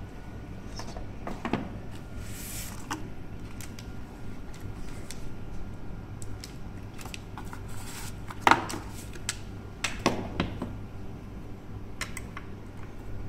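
Handling noise on a desk: a cardboard box being opened and an aluminium-bodied electromagnetic door lock lifted out and set down, with scattered clicks and knocks and a brief rustle. The loudest knock comes about eight and a half seconds in, with another about ten seconds in.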